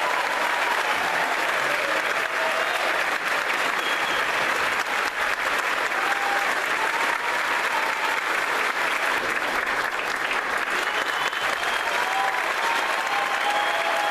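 Large audience applauding steadily at the end of an orchestral piece, with a few faint high calls over the clapping.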